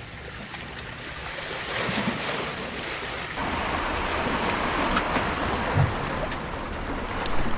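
Sea waves washing against rocks, with wind noise on the microphone; the sound steps up slightly louder about three and a half seconds in.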